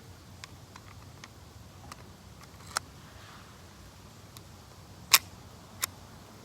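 Clicks and light knocks of an Echo1 TAP airsoft pistol being handled: a few faint ticks, then three sharper clicks, the loudest about five seconds in.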